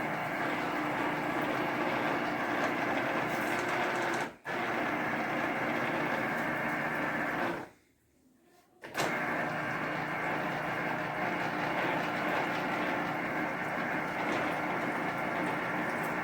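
Electric citrus juicer motor running steadily as an orange half is pressed on it, stopping for a moment about four seconds in and for about a second near the middle before starting again.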